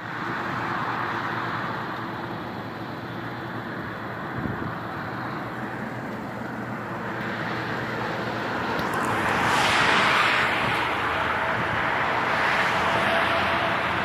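Highway traffic noise: a steady rush of passing vehicles, one swelling loudest about ten seconds in, with a faint steady whine entering near the end.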